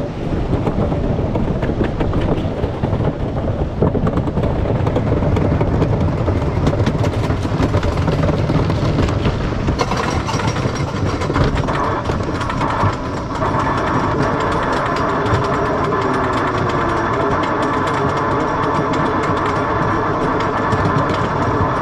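Wooden roller coaster train rolling over its track with a clattering rumble, then, about ten seconds in, climbing the chain lift hill: a steady mechanical whine from the lift chain with rapid clacking of the anti-rollback ratchet.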